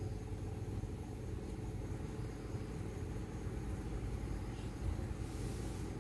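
Steady low rumble in the background, with a short hiss about five seconds in.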